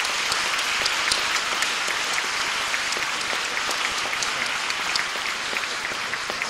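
Audience applauding: many people clapping together in a dense, steady patter of claps.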